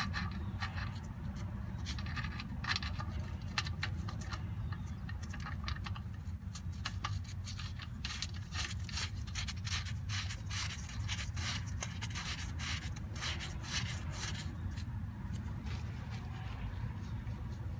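Drain plug being threaded by hand into the rear differential housing of a 1985 Toyota pickup: irregular small scraping clicks of metal threads and fingers on the plug. A steady low rumble sits underneath.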